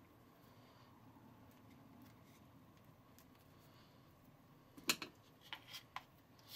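Quiet room tone, then about five seconds in a handful of light clicks and taps as frosting is scraped out of a small plastic bowl with a spatula.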